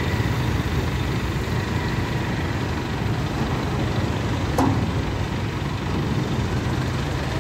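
Mobile crane's diesel engine running steadily while the crane hoists a heavy load, with a single short knock about halfway through.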